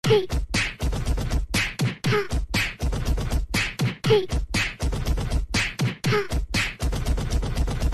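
Beatbox-style rhythmic beat: quick hits about four a second over deep thumps, with a short swooping vocal sound about every two seconds.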